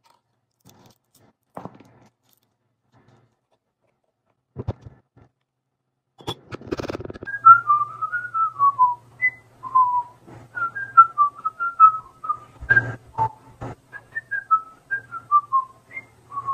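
A person whistling a short tune, starting about six seconds in: single clear notes that step and glide up and down. A few sharp knocks come with its start and again near the middle, and a few light taps come before it.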